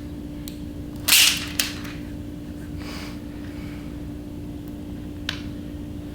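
Handling noises: a brief loud swish about a second in, a click, a softer swish, and a sharp click near the end, over a steady low hum.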